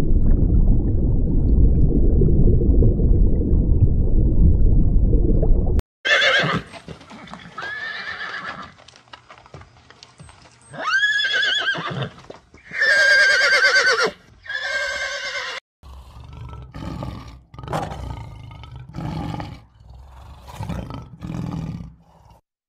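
Horse whinnying: five neighs with a shaky, wavering pitch, coming after about six seconds of loud low rumbling noise. Near the end comes a run of shorter, lower sounds about once a second.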